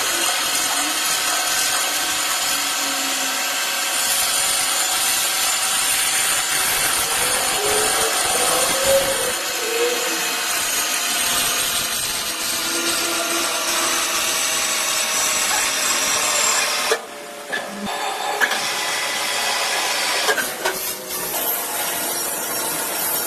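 CNC machine cutting aluminium: a steady, high whine over cutting noise, which dips briefly about seventeen seconds in and then starts again.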